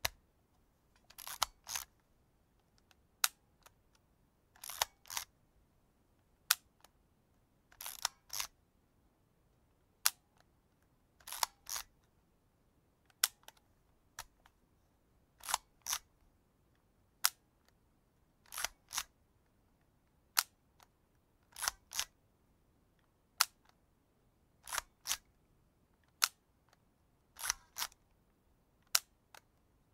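Vintage mechanical film camera worked over and over: a sharp shutter click about every three seconds, each followed a second or so later by a longer two-part mechanical sound.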